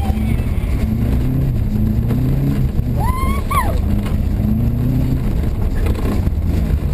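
Rally car engine heard from inside the cabin, running hard, its pitch climbing and dropping as it accelerates and changes gear. A child's short excited shout rises and falls about three seconds in.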